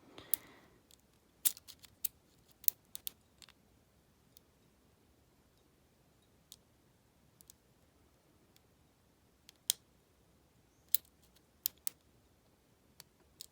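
Scattered sharp metallic clicks of a lock pick working the pins of a padlock under heavy tension, a cluster in the first few seconds and a few more near the end.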